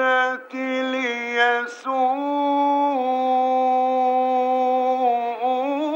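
A man chanting the Quran in melodic tajweed style. In the first two seconds the voice breaks off briefly a few times, then holds one long drawn-out note that wavers and rises near the end.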